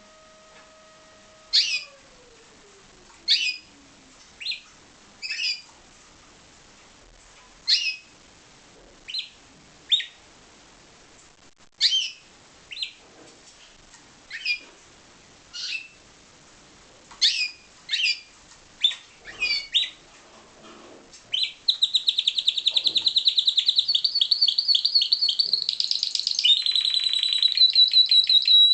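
Timbrado canary calling: short separate chirps every second or two. About two-thirds of the way in it breaks into a continuous, fast, rolling trill of song.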